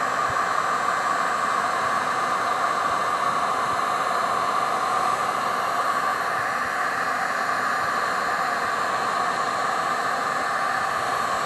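Heat gun running steadily: an even blowing hiss of its fan and air stream, with no change in pitch or level.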